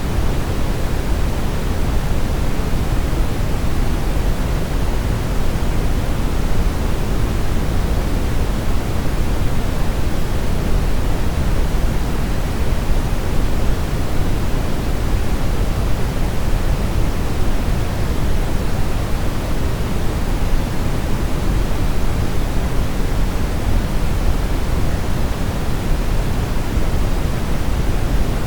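Brown noise: a steady, unchanging deep rush with most of its weight low down and little hiss on top.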